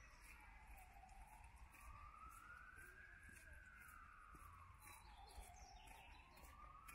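Faint emergency vehicle siren sounding a slow wail, its pitch sliding down and up again about every five seconds.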